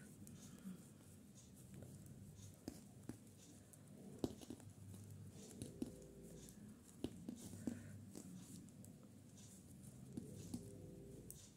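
Faint, irregular clicking and ticking of knitting needles as yarn is worked into purl stitches on a sock.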